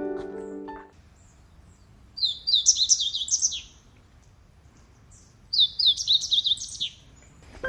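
A wild songbird singing two phrases of quick, high, down-slurred notes, each about a second and a half long, with a pause between them. Piano music fades out in the first second.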